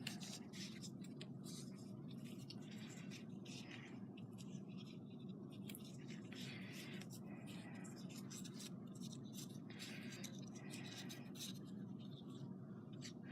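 Faint scratchy rustles and small irregular clicks of craft materials being handled and worked on a tabletop, over a steady low hum.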